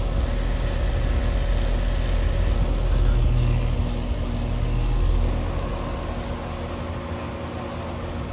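Outdoor heat pump condensing unit running in cooling mode: a steady compressor hum with the whoosh of the condenser fan. The low hum drops off about two-thirds of the way through.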